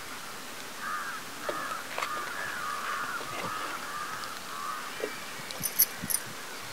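Crows cawing over and over in quick succession, starting about a second in and dying away about a second before the end.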